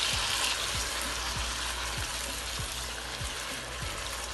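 Chopped tomatoes sizzling as they land in a pan of hot oil and spiced onion masala, the hiss strongest at the start and then settling to a steady sizzle. A soft, steady drum beat of background music runs underneath.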